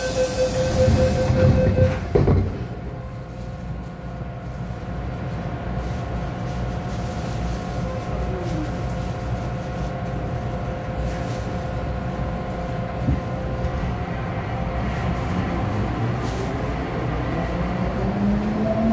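MTR M-Train doors closing: a steady warning beep tone with a hiss runs for the first two seconds, and the doors knock shut about two seconds in. The train then stands humming, and near the end its traction motors start a rising whine as it pulls away.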